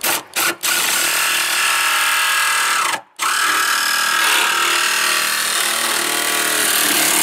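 Jigsaw cutting a square hole through the van's sheet-metal roof: loud sawing with the motor's whine. It starts in a few short bursts, stops briefly about three seconds in, with the whine dropping in pitch as it slows, then cuts steadily again.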